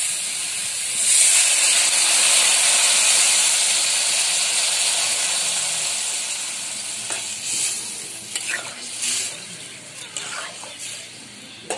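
Water poured into a hot aluminium kadai of spice-fried potatoes and vegetable stems sizzles loudly, starting about a second in, then slowly dies down as the liquid cools the oil. Over the last few seconds a metal spatula clicks and scrapes against the pan as the curry is stirred.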